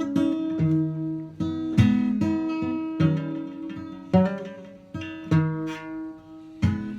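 Acoustic guitar strumming chords, each strum ringing on until the next.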